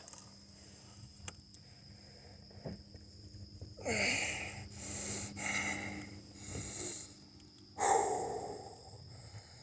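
A man's breath: after a few quiet seconds, a run of breathy puffs and sniffs, then a louder blowing-out of breath near the end.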